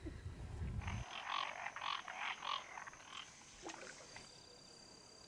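Frogs calling: a run of about five croaking calls roughly half a second apart, then a few weaker calls. A low rumble cuts off about a second in, just before the calls start.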